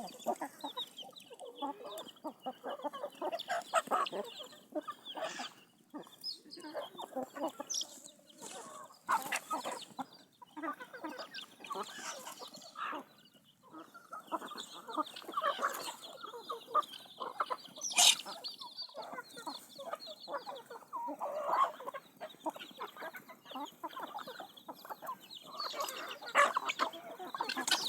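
Chickens clucking and calling over one another in short, irregular calls throughout. A few sharp knocks are mixed in, the loudest about eighteen seconds in.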